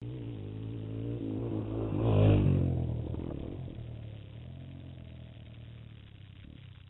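Dirt bike engine passing close by: it grows louder, is loudest about two seconds in, then fades as the bike rides away.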